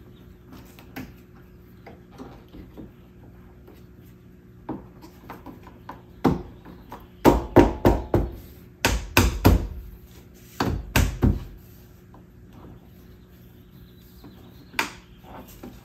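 Sharp knocks and thumps as hands press and tap a new window weatherstrip molding down onto a 2009 Honda Civic door's top edge, seating its clips. They come in clusters from about six to eleven seconds in, with one more near the end, over a faint steady hum.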